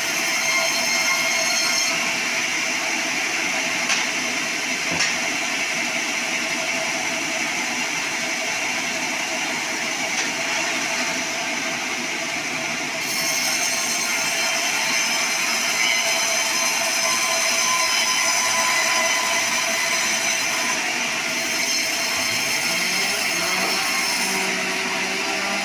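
Band sawmill blade cutting lengthwise through a log, a steady high-pitched saw whine over the rush of the cut with the mill's motor running underneath. Near the end some lower pitches rise, as the machine's speed or load changes.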